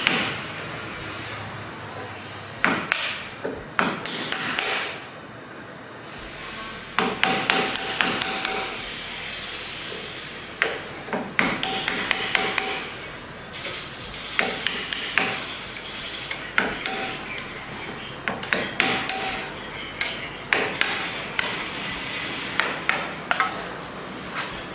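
Metal hammer blows on the car's shock absorber strut and its fittings: groups of quick, ringing metallic strikes separated by short pauses, struck while the strut is being freed for removal.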